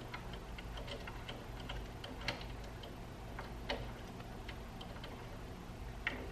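Light, irregular clicks and ticks of small metal hardware and tools being handled while a limit switch is fitted with screws and T-nuts, with two louder taps a little over two seconds and nearly four seconds in.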